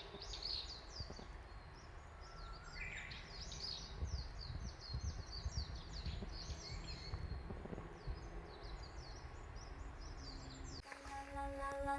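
Small birds chirping outdoors: many quick, high, downward-sliding chirps in busy succession over a low background rumble. Music starts near the end.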